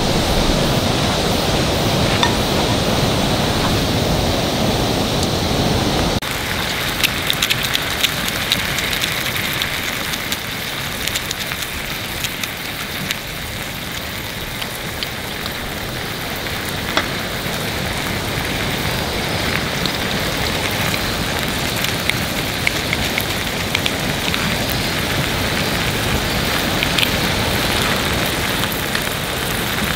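A low, even rushing noise for about the first six seconds, then a beef steak sizzling in oil in a cast iron skillet: a steady crackling hiss with many scattered small pops.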